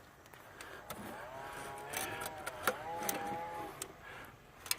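A man's low, drawn-out groans of effort, held on a steady pitch for a couple of seconds, with a few sharp clicks and knocks of parts being handled under a car's dashboard.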